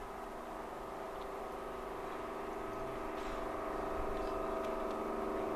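Class 55 Deltic diesel locomotive approaching from a distance, the steady drone of its two Napier Deltic engines slowly growing louder.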